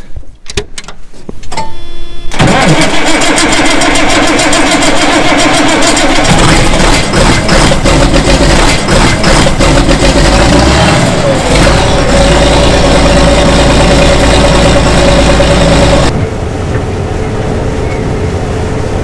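John Deere 9500 combine's six-cylinder diesel engine starting cold: a brief tone, then the engine catches about two seconds in and runs loud. About sixteen seconds in it drops to a quieter steady running sound.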